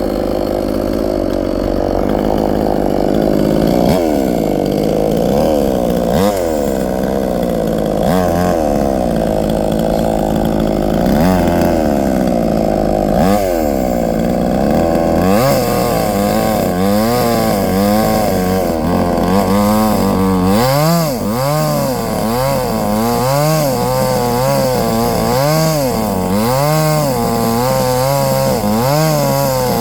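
Chainsaw engine running and cutting wood, its pitch dipping and rising again and again as the chain takes the load of the cut. The dips come every couple of seconds at first, then about once a second in the second half.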